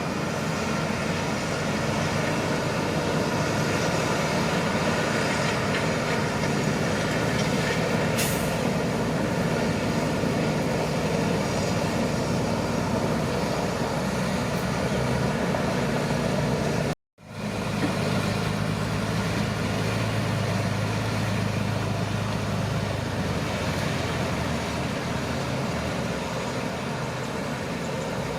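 Shantui crawler bulldozer's diesel engine running steadily while the machine works. The sound breaks off for an instant about two-thirds of the way through and comes straight back.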